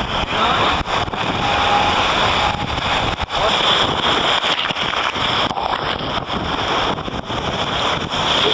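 Wind buffeting the microphone and rushing water, with spray breaking over the deck of an ocean racing yacht sailing fast. It is a loud, continuous noise, cut by a few brief dips.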